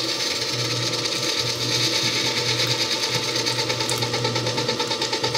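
Hobart N50 commercial stand mixer running on its lowest speed, beating eggs into a creamed batter: a steady motor-and-gear hum with an even pulsing several times a second.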